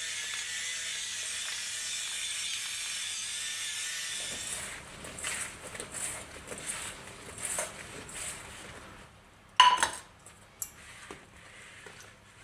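A steady hiss for about four seconds, then scattered light knocks and one sharp ringing clink just before the end, like something hard being set down.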